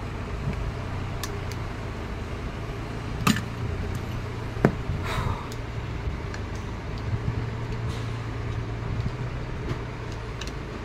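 Sharp metal clicks and clinks from hands and a hand tool working on a car AC compressor's clutch plate, the clearest a little over three seconds in and again near the middle. A steady low hum runs underneath.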